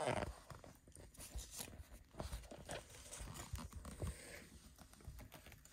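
Soft rustling and light knocks as a large softcover book is set down and its pages are turned: many short, irregular handling sounds, the loudest right at the start.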